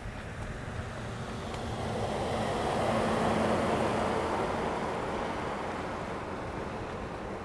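An SUV driving past on the road, its tyre and engine noise swelling to a peak about three seconds in and fading as it pulls away.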